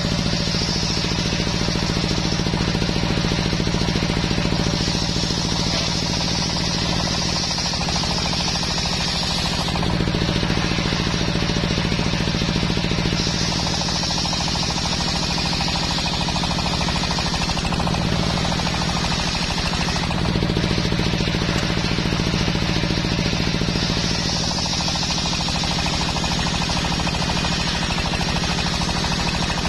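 Engine running steadily, belt-driving a table circular saw that rips a teak log lengthwise; a high whine-and-hiss of the blade biting the wood comes in several stretches, easing between passes while the engine keeps running.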